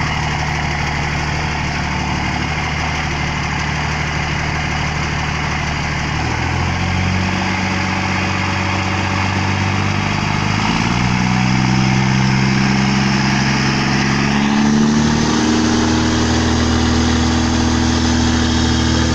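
Diesel engine of a VW Constellation 24.250 truck running in gear, its pitch stepping up as the engine speeds up about a third of the way in, again past halfway, and once more near the end.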